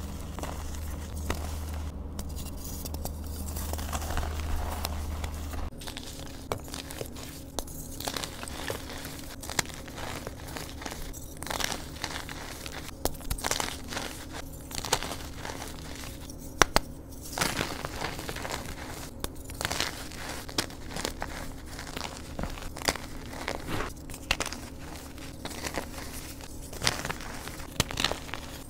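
Fingers crushing and crumbling soft reformed, dyed gym chalk in a bed of chalk powder: a dense run of soft crunches and crackles. A low hum sits under the first six seconds and then stops.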